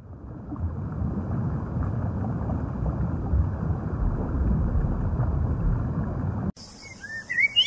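Underwater ambience: a low, muffled rushing of water that cuts off abruptly about six and a half seconds in. Near the end a few short chirps follow.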